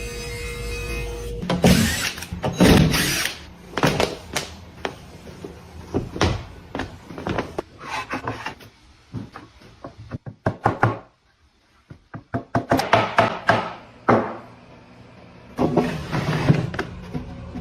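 Irregular knocks and taps of hand tools working wood, coming in clusters with short pauses and a brief lull about two-thirds of the way through.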